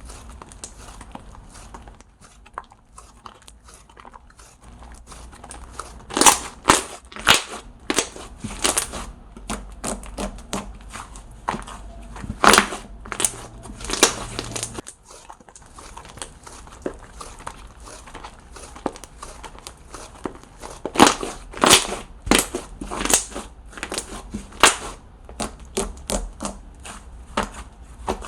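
Handmade slime being squished, poked and stretched by hand close to the microphone, giving irregular runs of sharp clicking and popping as trapped air bursts, louder in a few clusters.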